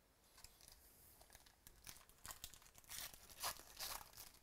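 A foil trading-card pack being torn open by hand, its wrapper crinkling in a run of irregular crackling tears that grow loudest about three to four seconds in.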